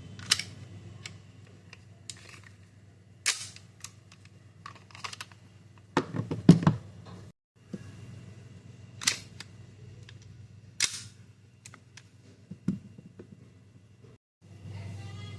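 CO2 airsoft BB pistol firing single shots: four sharp reports a few seconds apart, with small handling clicks between them. About six seconds in there is a louder cluster of heavier knocks.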